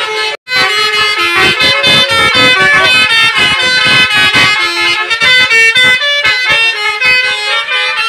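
Basuri musical bus horns playing a tune of quick, stepping notes, briefly cut off about half a second in.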